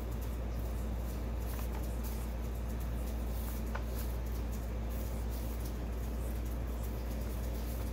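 A steady low hum, with faint clicks and light rustles of paper sheets being lifted off a stack of drawings and laid aside.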